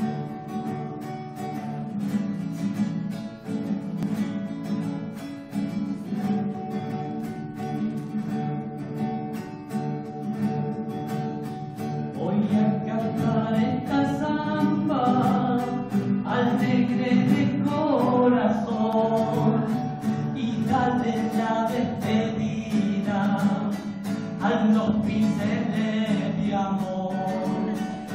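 Acoustic guitar playing an Argentine folk zamba, first alone, then with a man's voice singing the song from about twelve seconds in.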